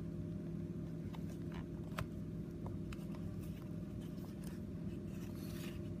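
Small clicks and taps of a chrome Zippo lighter and its plastic display box being handled, with a short rustling scrape near the end as the lighter is lifted out of the box. A steady low hum runs underneath.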